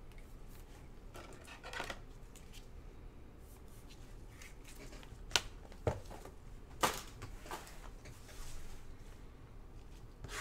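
Gloved hands handling trading cards and cardboard card boxes: soft rustling, with three sharp taps and clicks between about five and seven seconds in.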